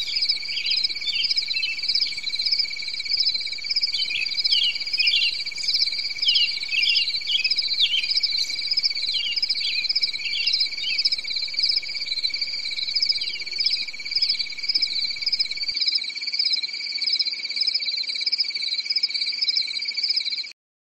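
Insect chorus: a steady high trill with a pulsing buzz above it and many short falling chirps over it, cutting off abruptly near the end.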